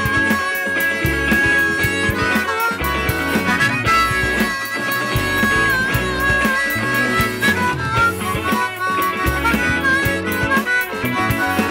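Rock band playing, led by an amplified harmonica cupped against a microphone, playing long held notes with bends, over electric guitar, bass guitar and a steady drum beat.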